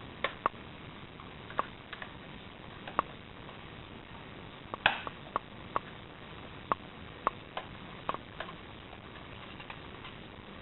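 Scattered small clicks and taps of a screwdriver undoing the screw and lifting off the plastic memory cover on the underside of a Dell Latitude D530 laptop, with one louder click about halfway through.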